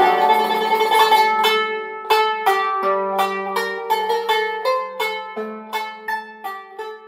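Outro music: an instrumental tune of quick plucked-string notes that fades out near the end.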